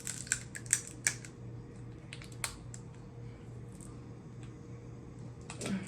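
A series of sharp, uneven clicks and small cracks, clustered in the first second and again near the end: snow crab leg shells being cracked and picked apart while eating.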